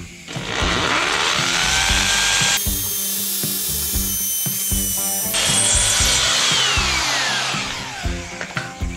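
Hammer drill with a concrete bit boring an anchor hole in concrete. The motor whines up to speed, runs with a harsher stretch in the middle, then winds down with a long falling whine near the end.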